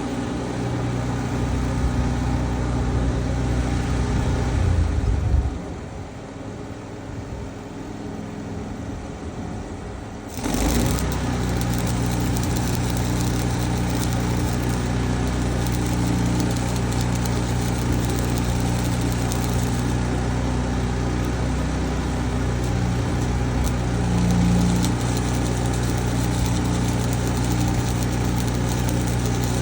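An engine running steadily at idle, with a quieter spell lasting about five seconds before it comes back suddenly at full level.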